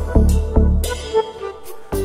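Background music: an electronic track with heavy, deep bass hits and a steady beat over sustained tones.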